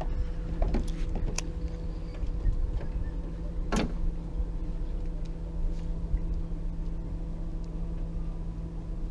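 A motor hums steadily at a low, even pitch, with a few short clicks, the sharpest about four seconds in.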